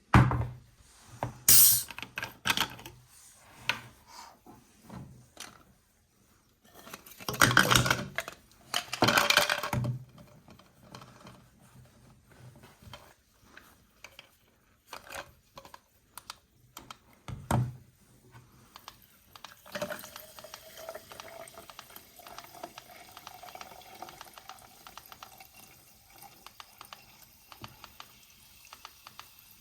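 Plastic toys and their packaging being handled: scattered taps and clicks, two loud rustling bursts, and a sharp knock. About two-thirds through, a faint, slowly rising whine sets in under rapid light ticking.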